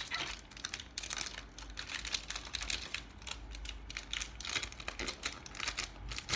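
Small foil packet of trading cards being torn and crinkled open by hand, with many quick irregular crackles and clicks.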